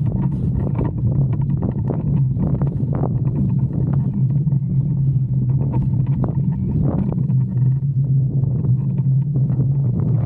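Strong wind buffeting the microphone: a loud, steady low rumble with irregular gusty flutters on top.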